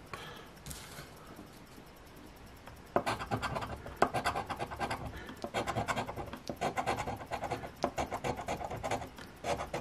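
A coin scratching the coating off a paper scratch-off lottery ticket in quick, repeated strokes, starting about three seconds in after a quiet moment.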